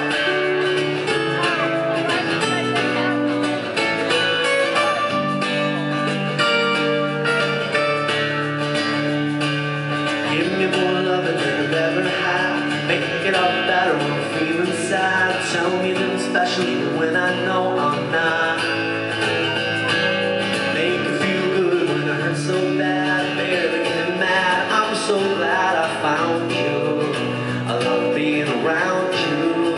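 Live band music, heard from the audience: strummed acoustic guitars with singing.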